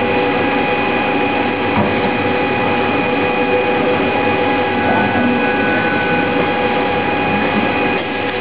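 Steady mechanical running noise from a motorised robotic scanner rig, a continuous hum with several constant whining tones.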